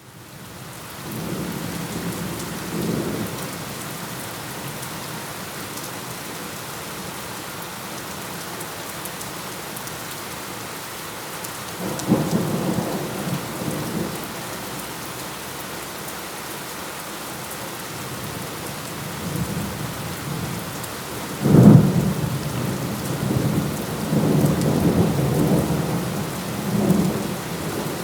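Steady heavy rain with rolling thunder. Low rumbles come about a second in and again around twelve seconds in, then a sharp, loud thunderclap about twenty-one seconds in rolls on for several seconds.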